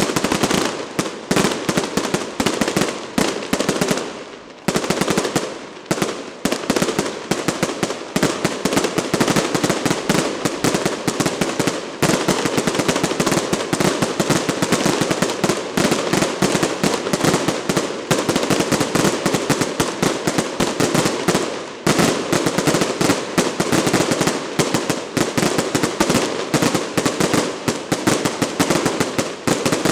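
Daytime fireworks bursting overhead in a dense, unbroken barrage of sharp crackling bangs, many each second, easing briefly about four seconds in.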